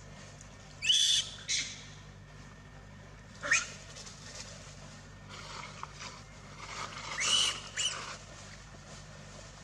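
Young macaques giving short, high-pitched screams: two about a second in, one at about three and a half seconds, and a cluster of them near the end.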